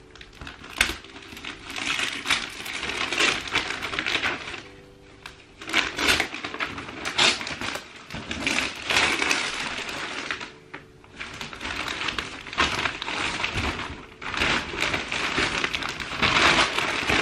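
Christmas wrapping paper being torn and pulled off a gift box, crackling and rustling in bursts with a few short pauses.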